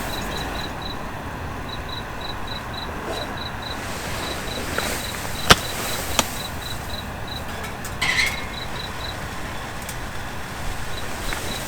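A cricket chirping in a steady run of short high chirps, about four a second, with brief pauses, over a steady hiss. A couple of sharp cracks sound near the middle.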